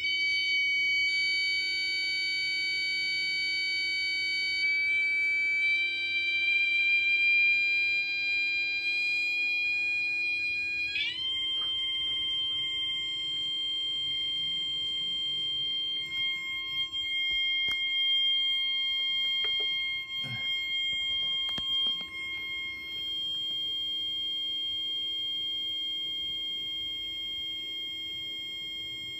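Steady high-pitched electronic tone with overtones from a 555 timer oscillator circuit. Its pitch steps up slightly a few seconds in and jumps higher about eleven seconds in as its frequency is adjusted, then holds steady. A few faint clicks come around twenty seconds in.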